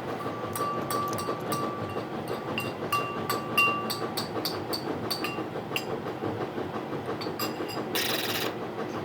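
Light clicks and small taps, some with a short ringing ping, from handling a die-cast toy car and its packaging, over a steady background hum. There is a brief crinkling rustle near the end.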